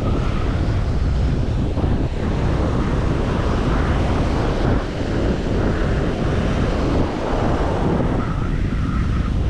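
Wind buffeting the microphone, a steady heavy rumble, with ocean surf washing behind it.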